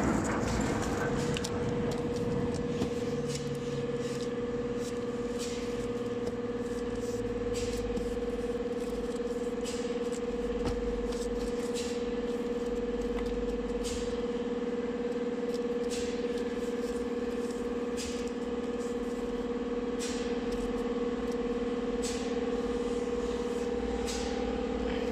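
A machine running with a steady, unchanging hum and whine, with scattered light taps and rustles of stacked corrugated cardboard sheets being handled and knocked into line.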